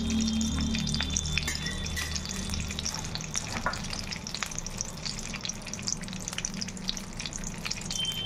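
Desi ghee heating and sizzling in a metal kadhai, a steady crackle of small pops as it melts and foams. A low hum under it fades out in the first second or two.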